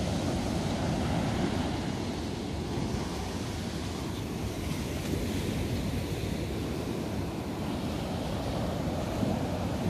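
Ocean surf breaking and washing up a sandy beach, a steady rush of surf with no single wave standing out.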